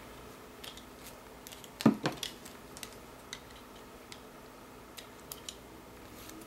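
Light clicks and taps of a chipboard piece and paper being handled on a craft table, with one louder tap about two seconds in.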